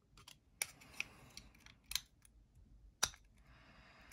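Small metal tools clicking and scraping on a folding knife's pivot screws during disassembly: about four sharp metallic clicks with smaller ticks and faint scraping between them.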